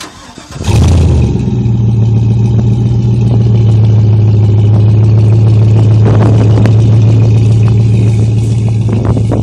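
V8-style pickup engine on a Gibson aftermarket exhaust with dual polished tips, heard right at the tailpipes: it fires up about half a second in and then runs at a loud, steady idle with a deep, even exhaust note.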